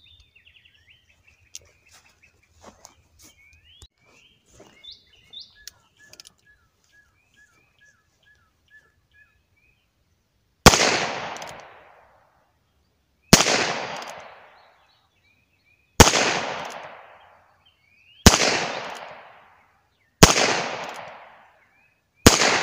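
Heritage Rough Rider .22 LR single-action revolver fired six times, emptying its cylinder, one sharp crack about every two to two and a half seconds, each with a short echoing tail; the first shot comes about ten seconds in. Before the shots, birds chirp and there are a few faint clicks.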